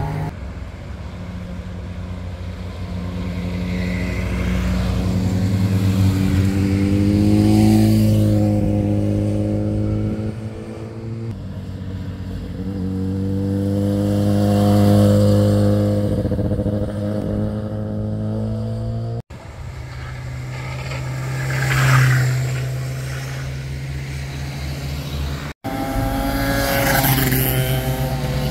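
Motorcycles riding through a hairpin bend one after another, engines rising and falling in pitch as they slow for the corner and pull away. The sound breaks off abruptly twice, between one rider's pass and the next.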